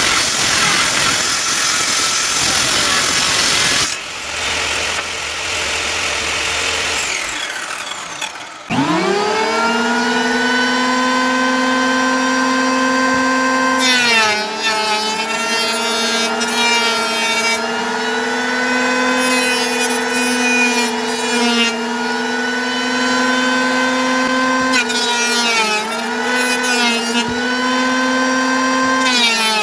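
Electric woodworking power tool: a first run winds down, then the motor spins up quickly to a steady whine. Its pitch dips briefly a few times, with scratchy bursts over it, as it takes load.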